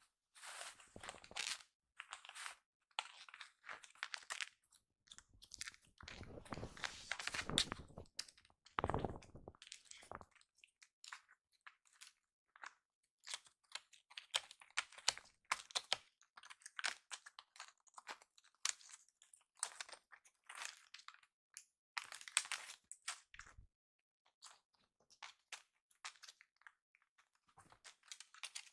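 Kittens' paws and claws scuffling and scratching on a tatami mat and a corrugated cardboard scratcher: irregular short scrapes and scratches, with a denser, louder run of scuffling about a quarter of the way in.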